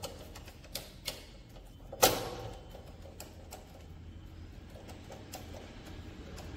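Scattered light metallic clicks and one sharp clank about two seconds in, ringing briefly, as tools and small metal parts are handled during motorcycle repair work.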